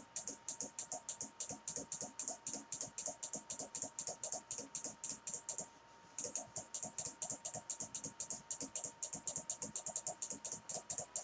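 Rapid computer mouse clicking, about five clicks a second, with a brief pause about six seconds in, over a faint steady tone.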